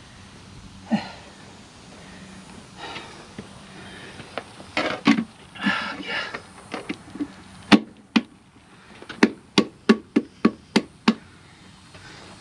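Hand tools knocking and clanking against a truck wheel. There are scattered clatters, then a quick run of about seven sharp strikes between about nine and eleven seconds in.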